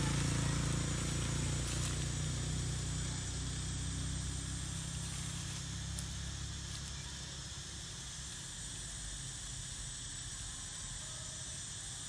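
Outdoor ambience: a low hum that fades away over the first half, under a steady high hiss like insects, with a faint click near the middle.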